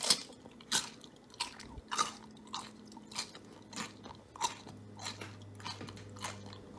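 Someone chewing crunchy food: about a dozen crisp crunches at a steady pace of roughly one every 0.6 seconds, the first the loudest.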